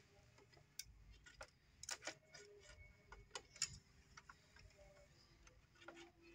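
A handful of faint, irregular light clicks and taps as a printer's formatter board and its cable connectors are handled and fitted into the chassis.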